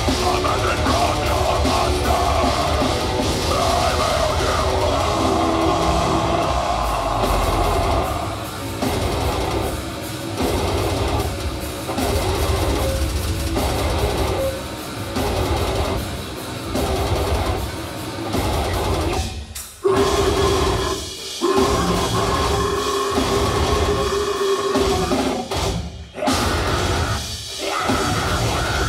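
Deathcore band playing live at full volume: distorted guitars, bass and drums. From about eight seconds in the music turns stop-start, with two sudden brief breaks, and a long held guitar note rings through the second half.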